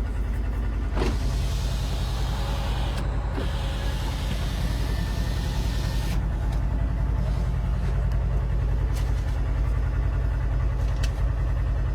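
Side-by-side's 1000cc engine idling steadily, heard from inside the closed cab, while a power window motor runs from about a second in to about six seconds in, with a few light clicks near the end.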